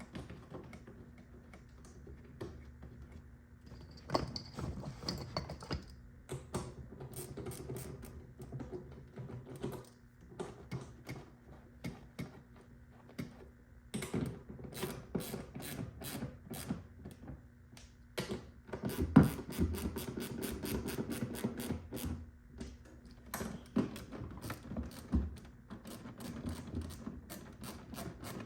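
Ratchet wrench clicking in bursts of rapid clicks as bolts are driven, with knocks of metal tools and parts in between.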